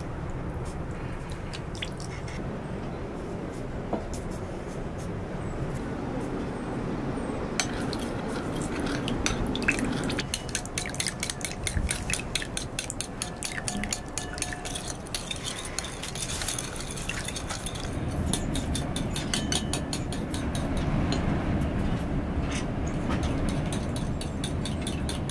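A metal spoon stirring a thick sauce in a ceramic bowl, with rapid clinks and scrapes against the bowl, over a steady low background rumble. Near the end a liquid is poured into the bowl from a small teapot.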